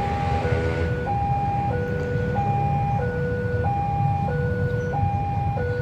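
Railway level-crossing warning alarm sounding, warning that a train is about to pass. It is an electronic two-tone signal that alternates a higher and a lower note, each about two-thirds of a second long, over a low steady rumble.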